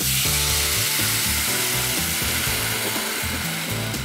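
Water poured into a hot pan of sautéed vegetables, oil and besan, hitting the hot pan with a loud sizzling hiss that starts suddenly and slowly dies down. Background music plays underneath.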